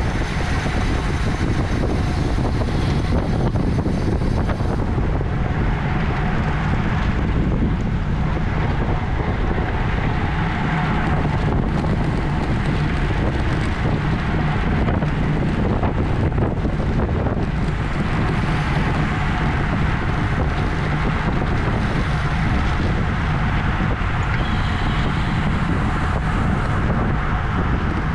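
Steady rush of wind buffeting the microphone of a camera riding on a racing bicycle at race speed, with road noise underneath.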